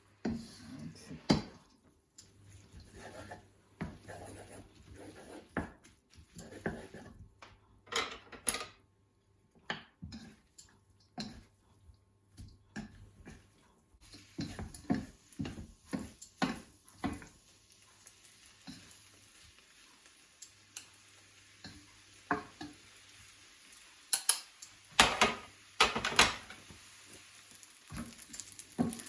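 A cooking utensil scraping and knocking against a pan in irregular strokes as glass noodles are stir-fried, with a faint sizzle of the frying noodles that is steadier in the second half.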